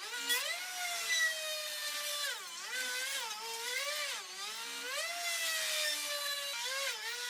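A handheld power tool's electric motor whining, its pitch sagging and recovering every second or two as it is pressed into the work.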